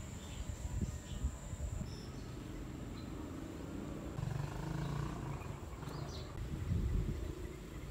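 Outdoor garden ambience: an uneven low rumble with a few faint, short high chirps from birds.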